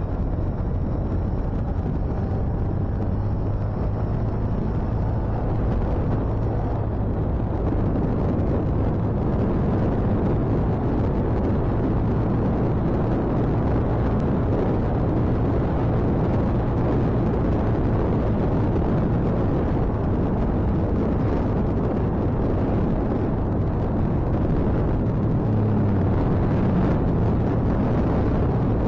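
Motorcycle riding along the road: heavy wind rush over the microphone with the engine's low hum beneath it, steady and unbroken.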